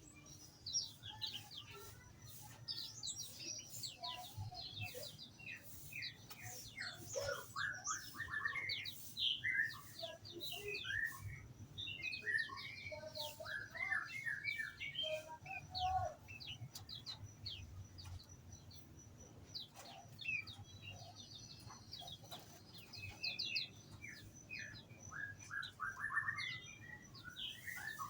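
Many small songbirds in an aviary chirping and twittering together in quick, overlapping short calls, with a faint steady high tone behind them.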